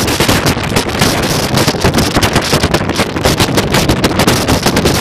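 Strong wind buffeting the microphone: a loud, rough rumble that flutters rapidly without letting up.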